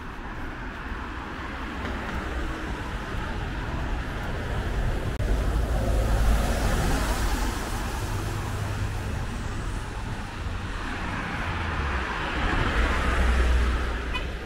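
Road traffic on a wet street: engine rumble and tyre hiss swell as a city bus passes close by about halfway through. Another vehicle passes near the end.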